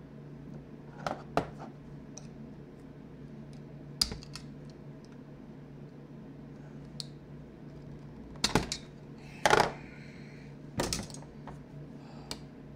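Scattered clicks and knocks of hand tools against an old Milwaukee pneumatic palm sander's metal housing as it is taken apart, with a few louder clatters in the second half.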